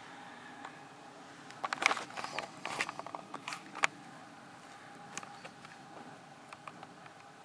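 Faint, scattered sharp clicks and pops over a low background hiss, bunched about two to four seconds in.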